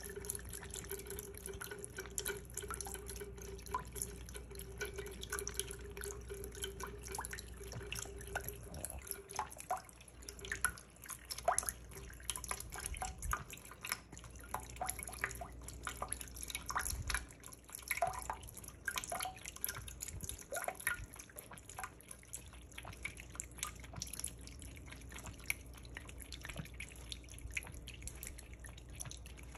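Thin stream of water running from a sink faucet with irregular drips and splashes, as a domestic cat laps at the stream, giving a spray of small wet clicks.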